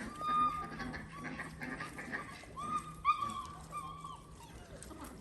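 A Dalmatian whining: about five short, high-pitched whimpers spread over a few seconds.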